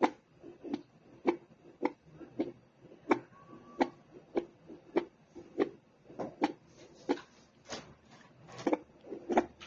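Fetal Doppler's built-in speaker playing a pulsing heartbeat signal: short whooshing thumps, about two a second.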